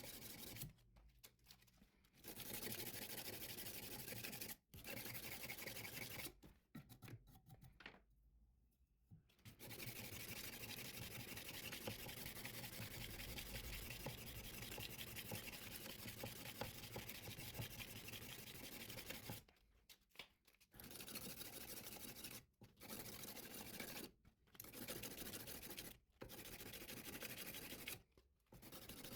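Sandpaper being rubbed by hand along a steel knife blade, a faint steady rasping at 100 grit. It comes in stretches of a few seconds, with brief pauses between them, the longest running about ten seconds.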